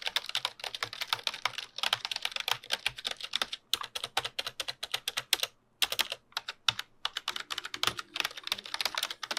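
Fast typing on a Keychron K8 mechanical keyboard: a dense run of sharp key clacks, broken by a couple of brief pauses.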